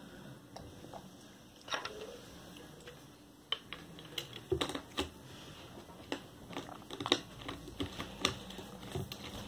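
Scattered light clicks and knocks of food containers being moved about in an open refrigerator, sparse at first and more frequent from about a third of the way in.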